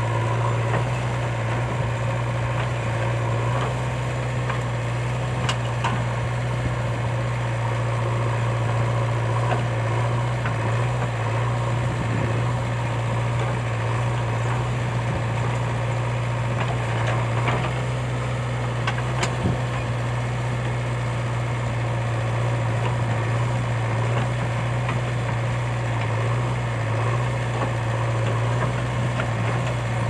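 JCB 3DX backhoe loader's diesel engine running steadily as the backhoe arm digs and swings loads of soil, with a few faint clicks here and there.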